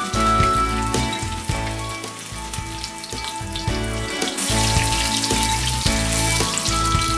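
Zucchini fritters sizzling in hot oil in a cast-iron skillet; the sizzle grows louder about four seconds in as a fritter is flipped back into the oil. Background music plays throughout.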